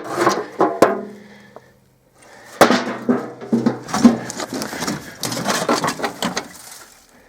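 Objects being handled and shifted about, in two stretches of knocking, clattering and scraping with a short pause between.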